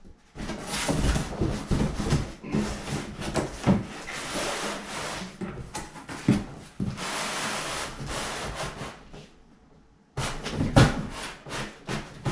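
Cardboard scraping and rubbing as one cardboard box is slid down over another that fits it snugly, with a couple of knocks along the way. After a short pause near the end, a burst of cardboard handling with a sharp knock.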